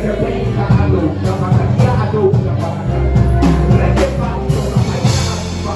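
Live worship band music with drums and sustained bass notes, and voices singing along.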